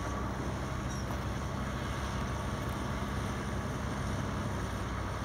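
Steady low rumble of an approaching freight train's diesel locomotives, still some way off.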